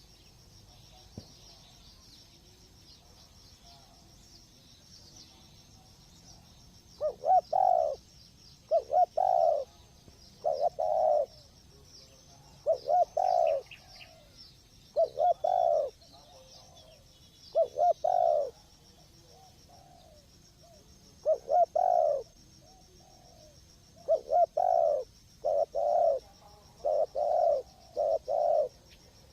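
Spotted dove cooing: a series of short, loud coo phrases, about one every two seconds, beginning about seven seconds in. A faint steady high buzz runs underneath.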